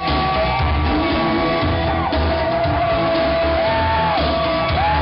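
Loud party dance music with a heavy pulsing bass beat, with people shouting over it.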